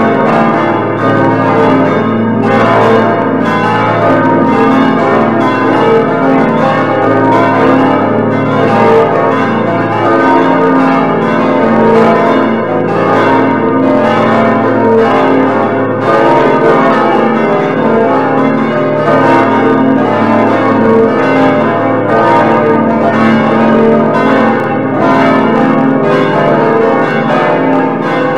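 Full peal of several church bells ringing together, their strokes overlapping in a continuous, unbroken clangour. The bell sounds are played through an on-screen computer bell-ringing simulator.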